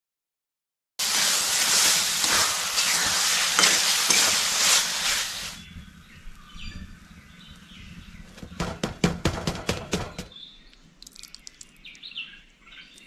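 Tomato bhaji sizzling loudly in a hot kadhai as it is stirred, starting about a second in and dropping away about five and a half seconds in. It is followed by a quick run of sharp clicks and faint bird chirps near the end.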